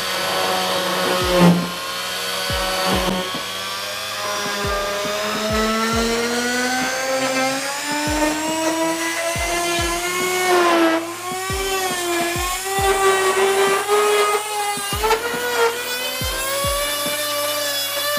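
Pigeon G561 oscillating multi-tool running at a low speed setting while cutting, its motor whine climbing slowly in pitch and then wavering as the blade's load changes.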